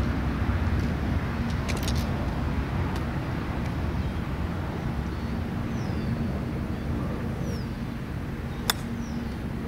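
A golf club strikes a teed golf ball once, a single sharp click near the end, over a steady low outdoor rumble.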